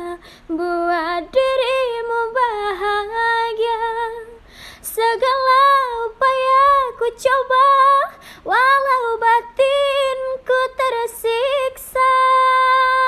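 A female voice singing unaccompanied: a high, ornamented melody in short phrases with wavering vibrato, ending in one long held note.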